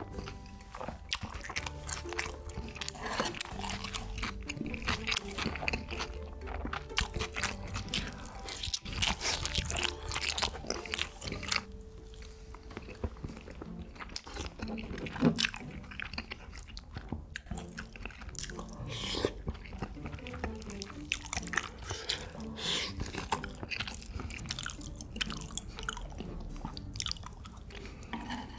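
A person eating close to the microphone: irregular chewing with many sharp crunches, over soft background music.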